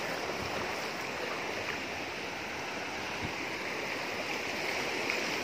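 Steady hiss and wash of breaking sea surf in shallow water.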